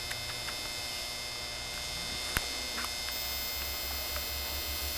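Steady electrical hum in the recording, with one sharp click about halfway through and a few faint ticks.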